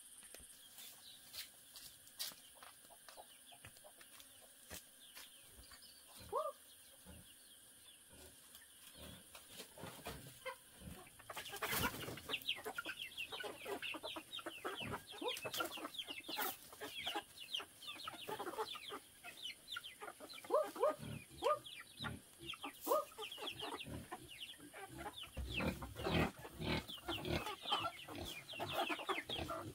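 Chickens clucking as they feed, with quick taps of pecking at scattered grain. The sound is sparse at first, then turns dense and busy about a third of the way in.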